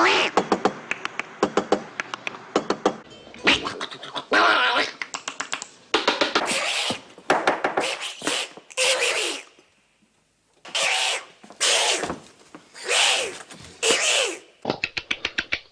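A man making comic mouth noises: rapid tongue clicks at first, then a run of separate hissing, sputtering vocal bursts about a second each, some with voice in them. Rapid clicking returns near the end.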